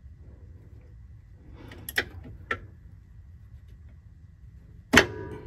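Metal tool clinks from a crow's-foot wrench on a power steering line nut: two light clicks about half a second apart, then a much louder metallic clank with a short ring near the end as the wrench suddenly gives under force.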